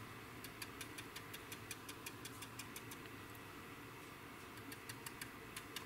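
Stiff stippling brush dabbed over and over onto a plastic model aircraft's wing, working weathering paint in. The faint light ticks come about five a second, pause for about a second midway, then resume.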